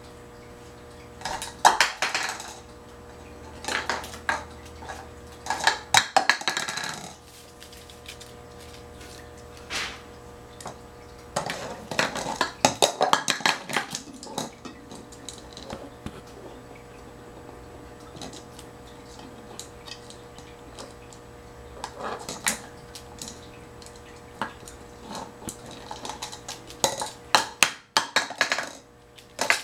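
Small plastic cups clattering and skittering on a hardwood floor as an African grey parrot picks them up, drops them and knocks them about, in about six bursts of rattling knocks with pauses between.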